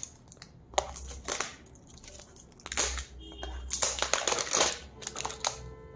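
Plastic packaging crinkling and rustling in the hands as a parcel is opened, in a few irregular spells with short pauses between.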